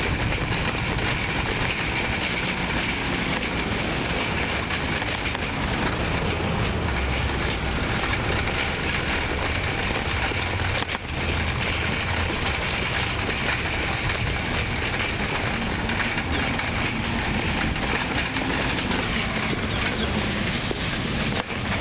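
Metal shopping cart rolling fast over asphalt, its casters and wire basket rattling in a steady, continuous clatter that dips briefly about halfway.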